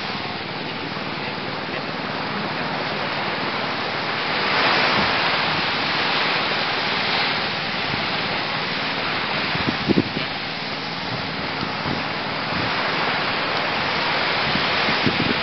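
Sea surf washing on the beach: a steady rushing hiss that swells about five seconds in, with a couple of soft knocks about ten seconds in.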